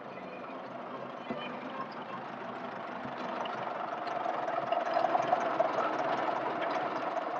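Old car engine running, growing louder over the first five seconds or so.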